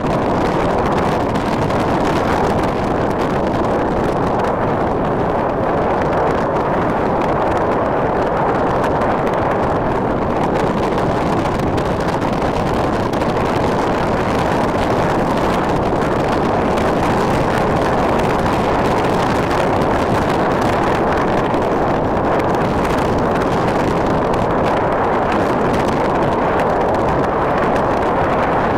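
Steady wind blowing across the microphone, an even, loud rush of noise with no breaks.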